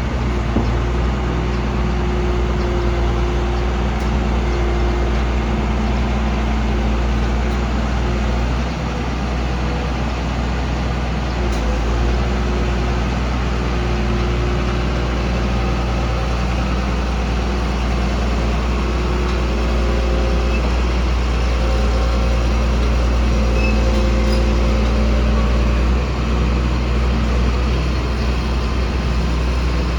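DR-150 drilling rig's engine running steadily with a constant low hum.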